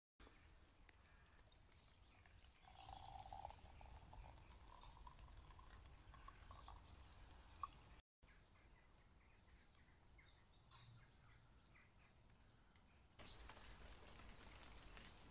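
Rosehip tea poured from a small aluminium camping pot into a glass jar: a faint trickle whose pitch slowly rises as the jar fills, ending in one sharp tap.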